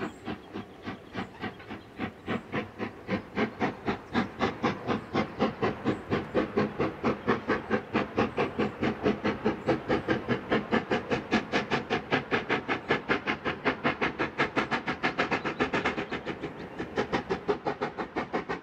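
Black 5 steam locomotive chuffing, its exhaust beats growing louder over the first few seconds and quickening from about two to about five a second.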